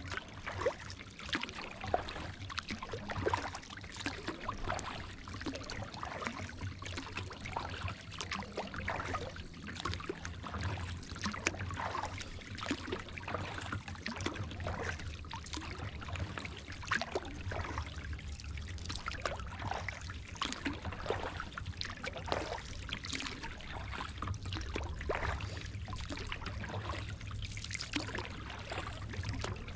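Kayak paddling: water splashing and dripping off the paddle blades in many short, irregular splashes, over a steady low rumble.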